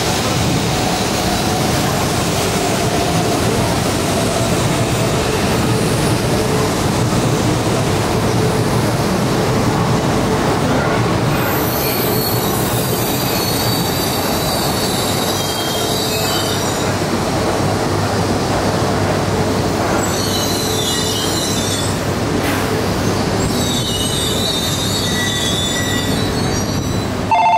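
E4 series double-deck Shinkansen running slowly over the tracks with a steady rumble of wheels and running gear. From about halfway on, high wheel squeal comes and goes over it.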